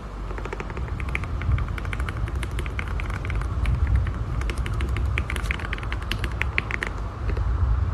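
Typing on a mechanical keyboard fitted with Gateron Milky Yellow Pro linear switches: a quick, uneven run of keystroke clacks over a steady low rumble.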